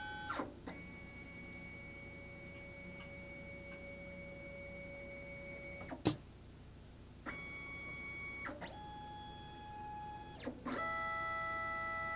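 STEPCRAFT CNC stepper motors whining through a series of steady-pitched moves, each at its own pitch with a short glide between them, as the machine runs an automatic tool change and picks up tool 1 from the rack. One sharp click about six seconds in, followed by a second of quiet before the motors start again.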